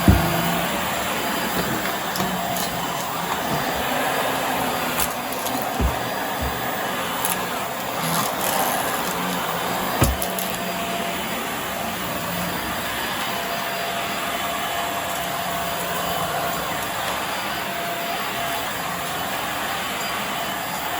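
Hoover Air Steerable upright vacuum cleaner running steadily as it is pushed over carpet, with a few short low thumps, the loudest about ten seconds in.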